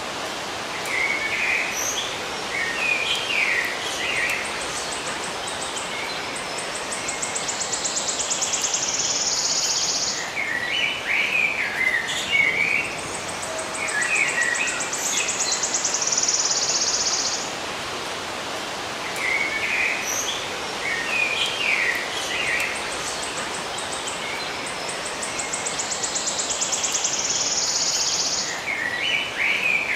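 Songbirds singing short chirping phrases, alternating with an insect's pulsed buzz lasting a few seconds that rises slightly in pitch, over a steady outdoor hiss. The same sequence comes round again about every 18 seconds.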